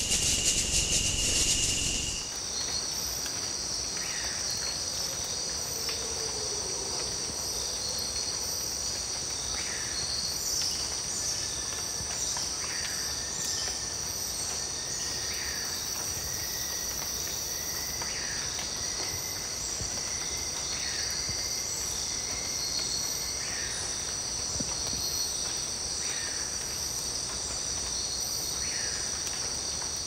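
Night-time rainforest insect chorus: steady, high-pitched trilling from many insects, with short chirps repeating every second or two. The first two seconds hold a louder, hissier buzz before it.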